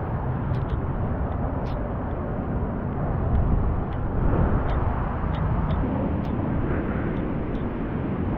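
Wind rumbling on an action camera's microphone, with a few light clicks scattered through it.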